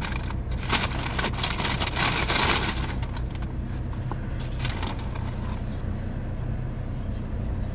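Paper fast-food bag and wrappers rustling and crinkling for the first three seconds or so as the meal is handled, then only a few faint rustles. Under it, a steady low hum of the car's engine idling.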